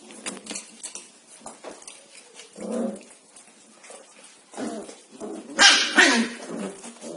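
Corgi puppies yapping and barking as they play-fight, with a lower yelp about three seconds in and two loud, sharp barks near the end.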